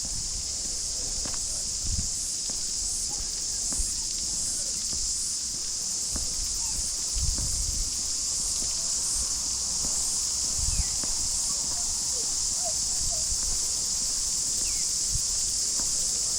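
Cicadas buzzing steadily in a high, unbroken chorus, with a few short bird chirps and the occasional soft footstep on the garden path.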